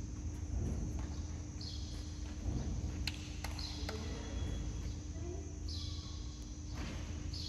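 Steady background hum of a badminton hall, with repeated high hissing or chirping bursts and two sharp cracks about three seconds in, half a second apart.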